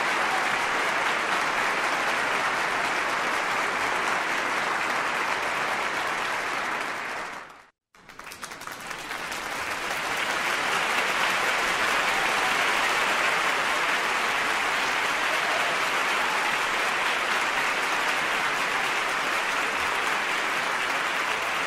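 Large crowd applauding, a dense, steady wash of clapping. About seven and a half seconds in it fades out to a moment of silence, then swells back up over a couple of seconds and carries on steadily.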